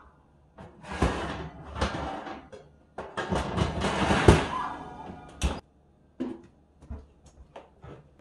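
Oven door open while things are pulled and slid about inside, giving two stretches of rattling and scraping, then a sharp thunk about five and a half seconds in as the oven door is shut, followed by a few light knocks.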